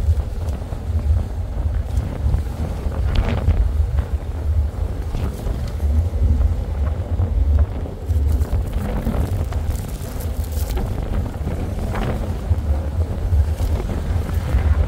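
Wind buffeting the microphone, a loud gusty rumble, with a few brief faint rustles as a dog mouths a plush toy.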